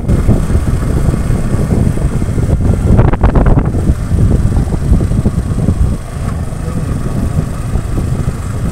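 A vehicle engine running while driving along a road, mixed with heavy wind rumble on the microphone; the rumble swells briefly about three seconds in.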